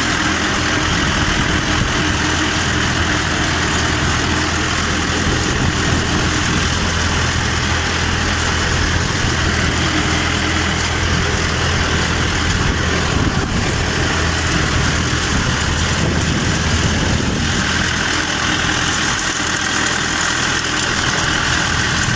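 Mahindra 595 DI Turbo tractor's turbocharged diesel engine running steadily under load, pulling a harrow, heard from the driver's seat.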